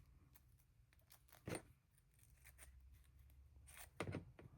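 Near silence with quiet handling of small parts, broken by two short clicks, one about one and a half seconds in and one near the end.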